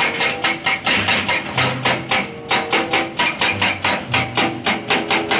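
Excavator-mounted hydraulic breaker hammering rock, a rapid, steady series of sharp blows at about five a second.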